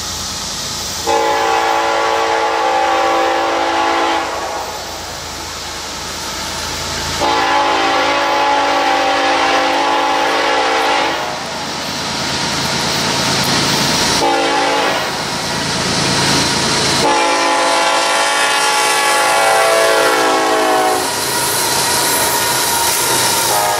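BNSF diesel freight locomotive sounding its air horn in long blasts as it approaches the grade crossing, the last blast dropping in pitch as the lead locomotive passes. After that the locomotives' engines and the train's wheels rumble by.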